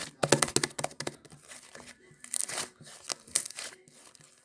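Crinkling and crackling handling noise, like a wrapper or bag being handled, coming in short irregular bursts, busiest in the first second.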